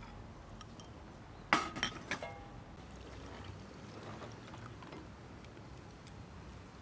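A ceramic bowl clinks sharply about a second and a half in and rings briefly, with a lighter clink just after. Around it, soft water sloshing and faint ticks as pieces of fish are moved about in the bowl of water with plastic chopsticks.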